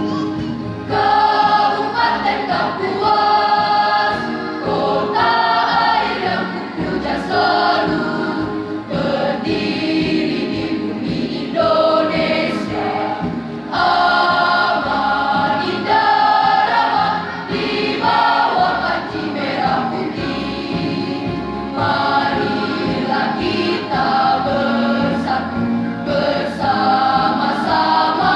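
School choir, mostly girls' voices, singing an Indonesian march song together.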